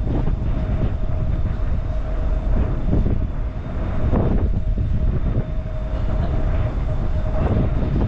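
Loud, continuous low rumble of a ship underway, with irregular rattling and a faint steady hum.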